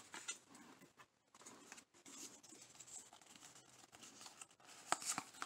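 Faint rustling and light clicks of Pokémon trading cards sliding against each other as a stack is fanned out by hand, with a few sharper card snaps a little before the end.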